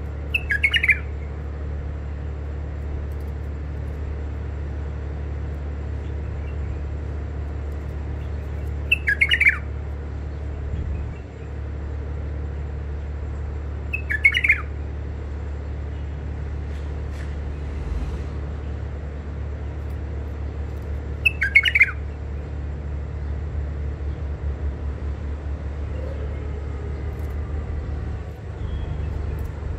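White-eared bulbul giving four short calls, spaced several seconds apart, over a steady low hum.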